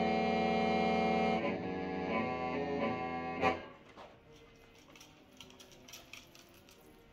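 Hmong qeej, a bamboo free-reed mouth organ, sounding a held chord of several notes that cuts off with a sharp accent about three and a half seconds in. After that there are only faint clicks and knocks.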